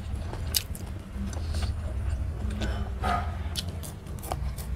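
Close-up eating sounds: fingers mixing rice and curry on a metal plate, then a mouthful being chewed with short wet mouth clicks. A steady low hum runs underneath.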